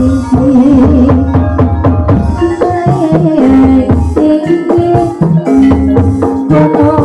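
Live ebeg accompaniment music: a gamelan-style ensemble plays a steady, driving rhythm, with drums and mallet-struck instruments carrying a repeating melody over a low bass.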